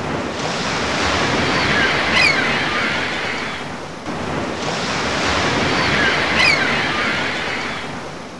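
Sound effect of ocean surf: two waves wash in, each swelling and fading over about four seconds. A faint high cry comes in the middle of each.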